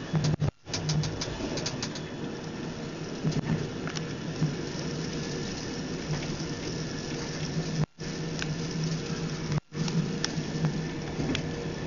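Glacier Express train running, heard from inside the carriage: a steady rumble with a pulsing low hum and scattered clicks. The sound cuts out completely for a moment about half a second in, and twice more near 8 and 10 seconds.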